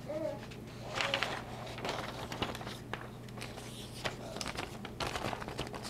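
Plastic laminating pouch and sheet of paper rustling and crinkling as they are handled, with irregular small crackles and clicks.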